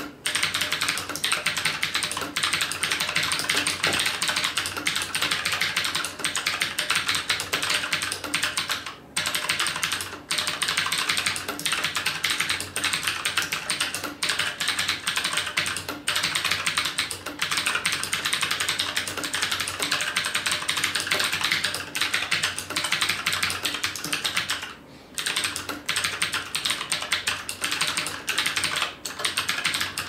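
Xenics StormX K5 mechanical keyboard being typed on fast and continuously, a dense stream of key clicks. The typing pauses briefly about nine seconds in and again about twenty-five seconds in.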